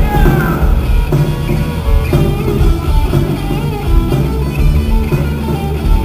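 A rock band playing live and loud, with electric guitars and a drum kit, all running continuously.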